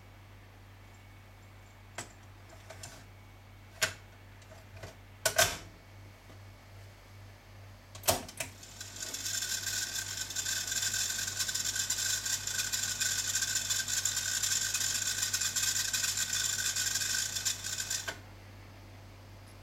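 Beltek M1130 cassette deck's piano-key transport buttons clicking as they are pressed, several clicks over the first eight seconds. Then a steady whirring hiss from the deck that runs for about ten seconds and cuts off suddenly.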